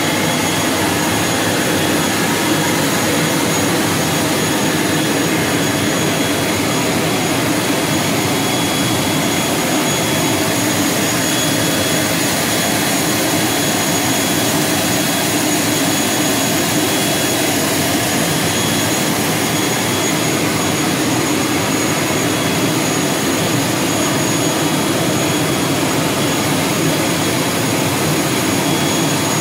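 ATR 72-600 turboprop engine running steadily close by: a constant loud rush with a steady high-pitched whine over it.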